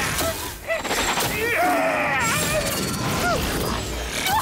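Fight-scene soundtrack of crashes and impacts, with drawn-out, wavering vocal cries through the middle.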